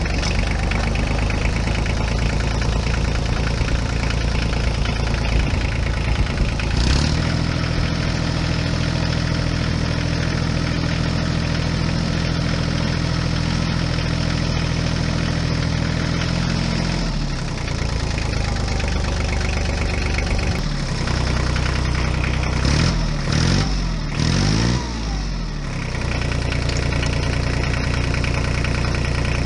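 A motor running steadily with a low hum. About seven seconds in a second steady tone joins it and drops out again about ten seconds later. Near the end the pitch swings up and down several times before settling back to the steady run.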